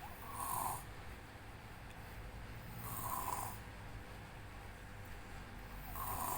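A nine-year-old boy, who is ill, snoring heavily in his sleep: three snores about three seconds apart, each about half a second long, over a low steady hum.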